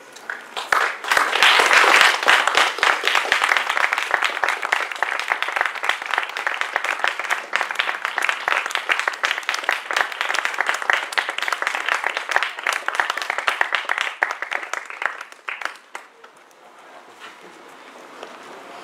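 Audience applauding. It starts about half a second in, is loudest in the first few seconds, and dies away about fifteen seconds in.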